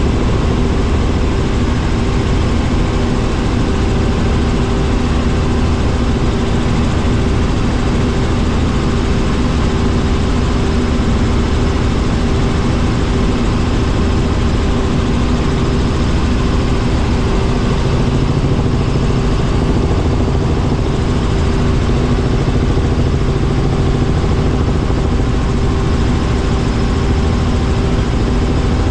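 Helicopter in steady cruising flight, heard from inside the cabin: a loud, unchanging drone of engine and rotors with a constant hum.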